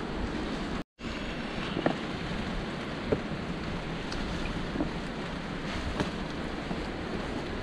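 Steady rushing noise of wind and rain on the microphone, with a few faint scattered knocks. The sound cuts out completely for a moment about a second in.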